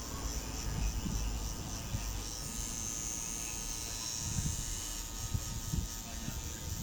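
Tattoo machine running with a steady buzz.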